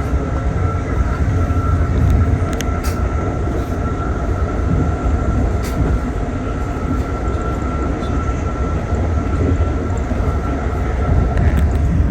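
Steady rumble of an Amtrak passenger car running at speed, heard from inside the car, with a thin steady high whine. A few sharp clicks sound in the first six seconds.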